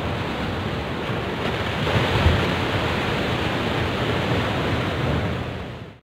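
Ocean surf breaking against shoreline rocks: a steady rush of waves that swells louder about two seconds in and fades out near the end.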